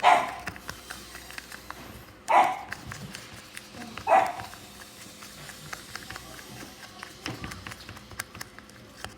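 A dog barking three times in the first four seconds or so, each bark short and loud.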